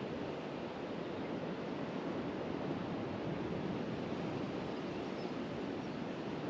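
Steady wash of the sea against the shore, mixed with light wind on the microphone.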